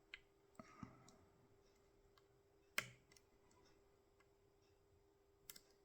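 Small clicks from a tubular hex-core lock being picked with a tensioner: a few faint ticks, one sharper click about three seconds in, and a couple more near the end, the sound of its pins setting as the pick works.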